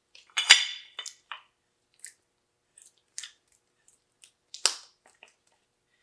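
Scattered metal clicks and clinks as the threaded body of a tractor's mechanical three-point link is spun by hand, running its rod ends in toward full retraction. The threads still carry paint. The sharpest clink comes about half a second in, another near the end.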